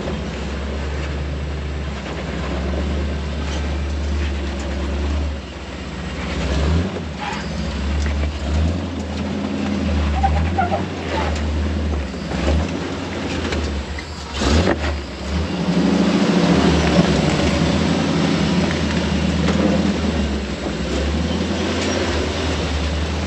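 Off-road truck engine running at low revs while crawling down a rocky trail, a steady low drone that dips and rises with the throttle. There is one sharp knock about fourteen seconds in.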